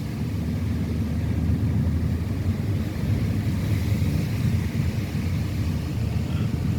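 Low, steady rumble of a car driving along a road.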